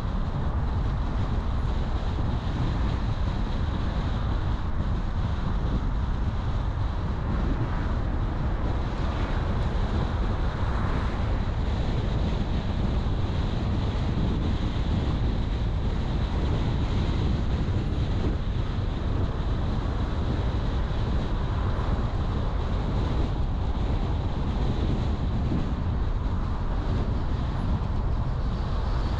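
A car driving steadily, with continuous low road rumble and wind noise and a faint steady high tone.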